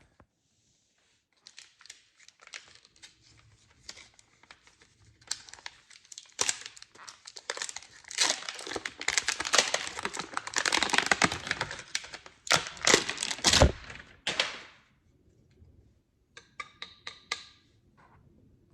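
Packaging being unwrapped and torn open by hand, crinkling and tearing in irregular bursts that are busiest past the middle. Near the end comes a short run of about six sharp clicks.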